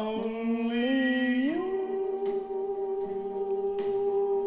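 A singing voice holding one long note, stepping up in pitch about one and a half seconds in and then held steady.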